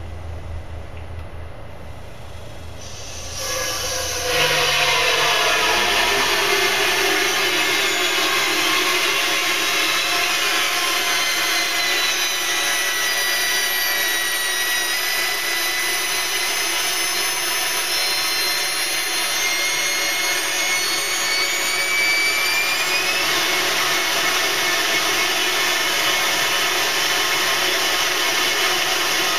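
Nitrous oxide rushing from an opened bottle through a dry-ice intercooler box and out its vent tube: a loud, steady hiss that starts about three seconds in and builds over a second or so, with thin whistling tones sliding slowly down and back up in pitch. The flowing nitrous is freezing the box's inner tubes.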